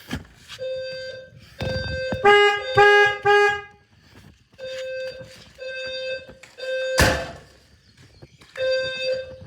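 Fire alarm sounder pulsing a steady electronic tone in the temporal-three evacuation pattern: three half-second beeps about a second apart, then a pause. A louder, lower horn cuts in with three short blasts a couple of seconds in, and a sharp knock sounds about seven seconds in.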